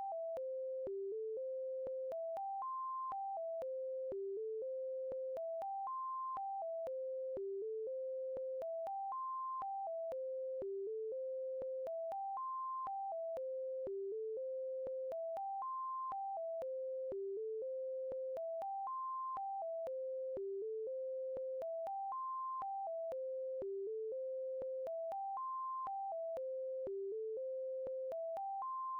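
Background music: a simple electronic melody of plain beep-like tones stepping up and down in pitch, the same short phrase looping about every three seconds.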